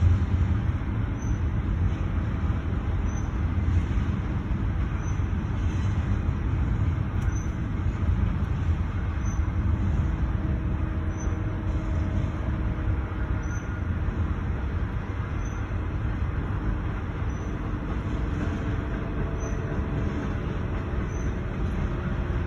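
CSX freight train's cars rolling through a grade crossing, a steady low rumble with no break, heard from inside a stopped car's cabin.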